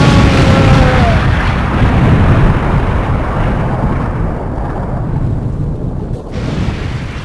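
Explosion sound effect: a dense, rumbling blast that is loudest in the first second and then slowly fades, with a brief drop about six seconds in.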